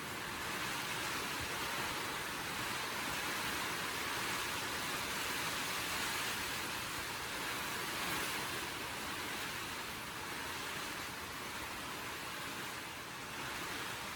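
Steady hiss-like noise with no distinct strikes or events.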